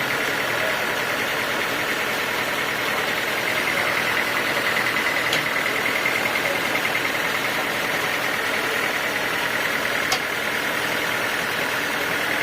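Sawmill machinery running steadily with a constant mechanical drone and high hum; two faint clicks sound about five and ten seconds in.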